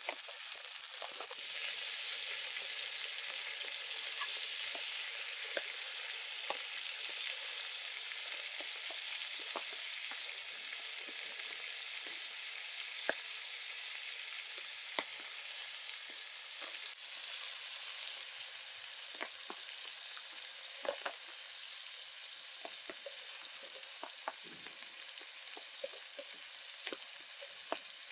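Meat patties sizzling in hot fat in an aluminium camp pan, a steady hiss with scattered small pops and crackles.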